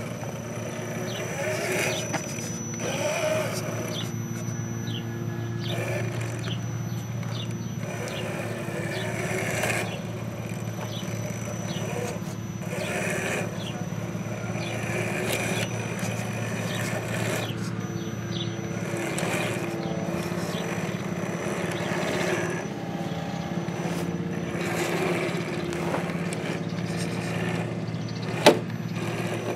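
Scale RC rock crawler's electric motor and geared drivetrain whining as it crawls over rocks, the pitch holding steady under throttle, with scrapes and crunches from the tyres on stone. A single sharp knock sounds near the end.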